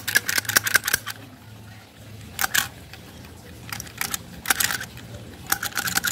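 Tolsen hand pop-rivet gun being squeezed, giving several bursts of rapid metallic clicking as its jaws grip and pull a rivet's mandrel.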